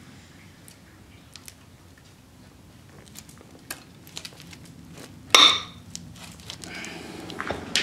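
Subaru EJ25 aluminium block halves being forced apart by turning the crankshaft against screwdrivers braced through the connecting rods: scattered faint metallic clicks and ticks, then one loud metal-on-metal clink with a short ring a little over five seconds in.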